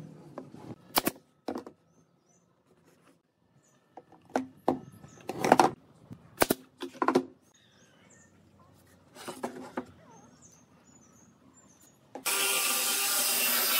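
Pneumatic brad nailer firing nails into the mitred corners of a wooden frame: several sharp shots, with short pauses between them. Near the end, an angle grinder fitted with a sanding disc starts suddenly and runs with a steady whine.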